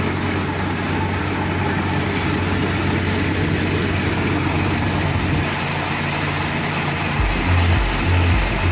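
Engine of a boat-mounted fish feeding machine running steadily with a low hum. About seven seconds in, a low throbbing pulse of roughly two beats a second joins it.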